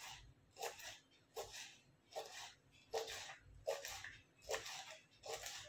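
Kitchen knife chopping a white vegetable on a plastic cutting board: a run of short knocks, roughly one every half to three-quarters of a second, somewhat uneven.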